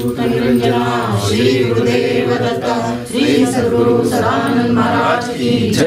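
A Kannada devotional bhajan sung by a group without instruments, the voices holding notes and sliding between them.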